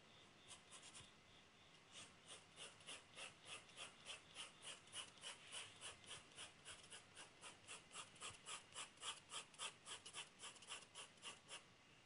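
Pencil shading on drawing paper: faint, quick back-and-forth scratching strokes, about four a second. A few strokes come at first, then they run steadily from about two seconds in and stop shortly before the end.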